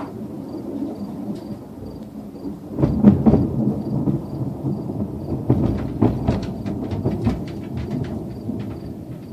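Thunder from a supercell thunderstorm: a sudden loud crack about three seconds in rolls into a crackling, rumbling peal with several sharp cracks, easing off near the end.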